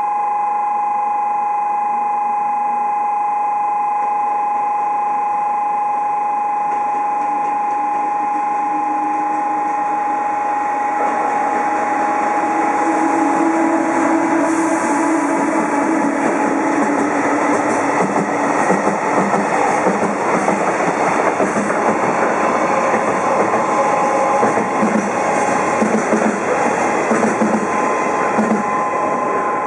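A steady two-note electronic tone sounds as an EF210 electric freight locomotive and its wagons approach. The train then passes close by at speed, running loud, with regular clickety-clack of wheels over the rail joints through the second half. The two-note tone is faintly heard again near the end.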